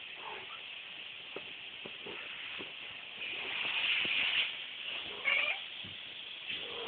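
Norwegian Forest Cat kittens, about four and a half weeks old, play-fighting; one gives a short mew about five seconds in, with small scuffling taps. Under it runs the steady hiss of a vacuum cleaner.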